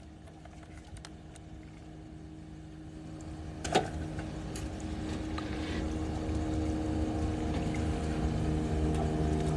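Motorboat engine running with a steady hum, growing gradually louder as the boat approaches. A single short sharp click about four seconds in.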